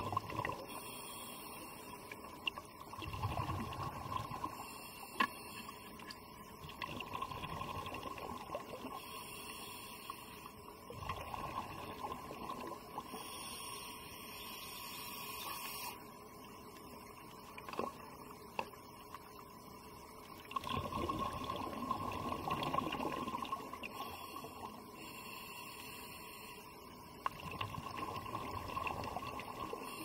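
Underwater ambience picked up by the diver's camera: water movement and bubbling that swell and fade every few seconds, over a steady high hum.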